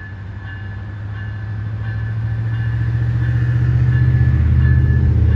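Siemens ALC-42 Charger diesel locomotive working under power as the train departs, its deep engine rumble growing steadily louder as it approaches. A bell rings repeatedly above the rumble.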